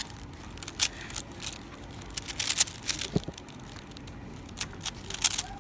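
3x3 Rubik's Cube being turned during a speed solve: irregular quick plastic clicks of the layers snapping round, in short flurries.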